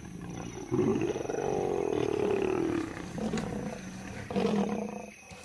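Lions growling and roaring in a fight, lionesses facing down a charging male lion. A long growling call starts about a second in and rises and falls in pitch over about two seconds, followed by lower, quieter growls.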